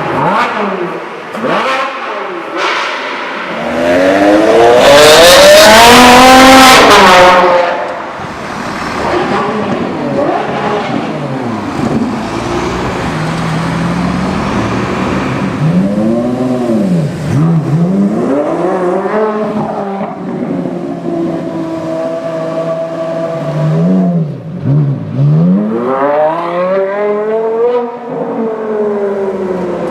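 Supercar engines revving and accelerating, the pitch climbing and falling again several times. The loudest stretch is a hard, rising rev about four to eight seconds in.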